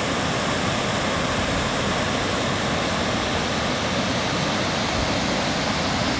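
Steady rushing of a waterfall at Amnicon Falls, heard close by as an even roar of falling water.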